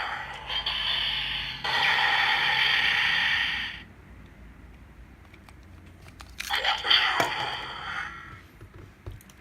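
Electronic sound effects from a Kamen Rider Build weapon toy's small speaker: a loud hissing, steam-like burst lasting several seconds, then a second burst with a rising sweep.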